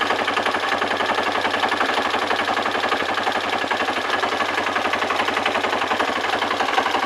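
A quad bike's (ATV's) engine idling at a standstill, heard close up from the handlebars, with a steady, rapid, even chugging.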